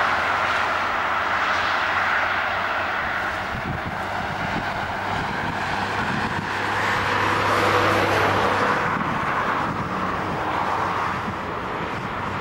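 Road traffic on the bypass: a steady rush of passing cars' tyres and engines, swelling around eight seconds in as a vehicle goes by.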